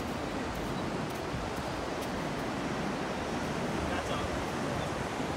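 Steady rush of ocean surf breaking on the beach, with wind noise on the microphone.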